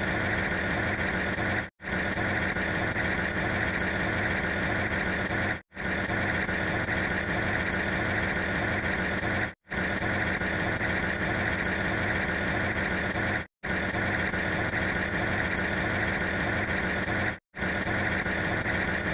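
A steady machine-like running noise, unchanged in character throughout. It repeats in segments of about four seconds, and each segment is cut off by a brief drop to silence.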